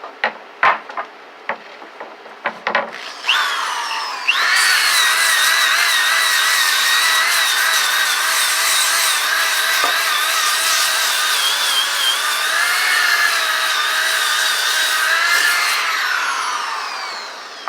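A DeWalt 6-inch disc sander spins up with a rising whine about three seconds in, runs steadily with a slightly wavering whine while giving a wooden board a light scuff, then winds down near the end. A few clicks and knocks of handling come before it starts.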